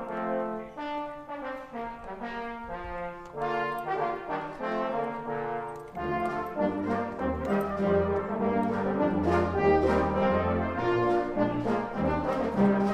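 Brass band playing a tune. Deeper bass notes join about six seconds in, and the music grows louder.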